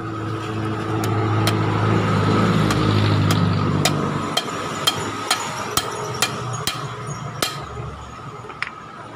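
Hammer tapping a ball bearing down onto a GY6 racing camshaft clamped in a bench vise: about a dozen sharp metal-on-metal taps, roughly two a second. A motor vehicle rumbles past during the first half, louder than the taps, and fades away.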